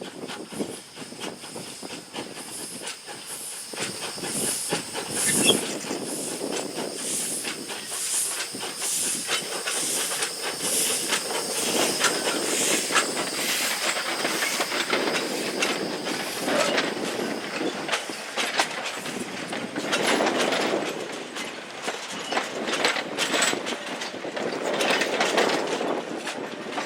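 Steam train running, with hissing steam and wheels clicking over the rail joints. A thin steady high tone stops about two-thirds of the way through.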